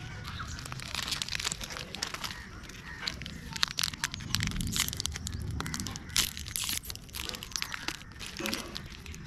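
Foil-lined plastic wrapper of a Britannia Milk Bikis wafer roll crinkling and tearing as it is handled and ripped open by hand, a run of sharp crackles with louder tears in the middle.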